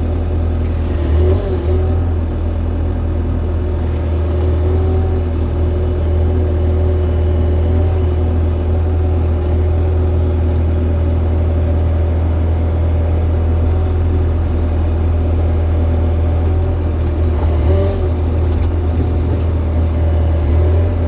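Excavator's diesel engine running steadily, a continuous low drone whose pitch wavers briefly a few times as the machine works.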